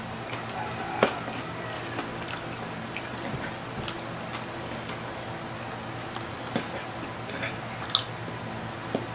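Close-miked eating: chewing and biting into crispy fried food, with scattered sharp clicks from utensils and crunching. The loudest clicks come about a second in and near the end, over a steady low hum.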